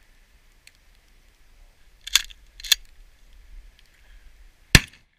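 A shotgun shot near the end, sharp and loud, with two shorter clacks about half a second apart a couple of seconds before it.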